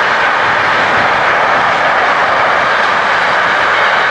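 Freight train of intermodal wagons rolling past, a loud, steady rush of wheel-on-rail noise.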